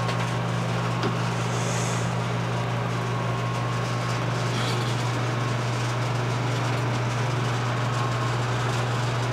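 A steady low mechanical hum that does not change, with a faint tick about a second in.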